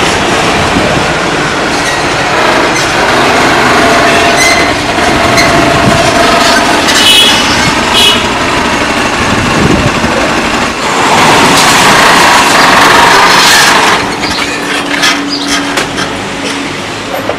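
Loud, continuous vehicle and street noise, with a louder stretch about eleven seconds in that drops off near fourteen seconds.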